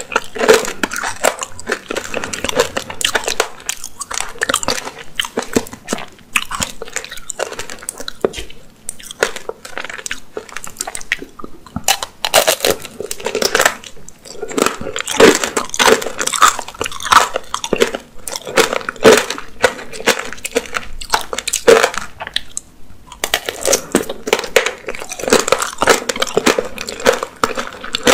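Close-miked crunching and chewing of apricot tanghulu: the hard, glassy sugar shell cracking between the teeth, with many sharp crackling clicks, followed by chewing of the soft apricot inside. A brief lull comes about three quarters of the way through.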